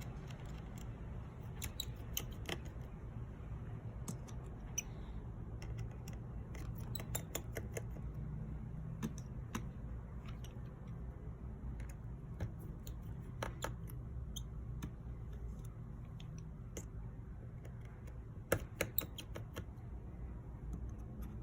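Scattered small clicks of tiny phone screws being backed out with a precision screwdriver and set down one by one, with a tighter run of clicks near the end, over a steady low hum.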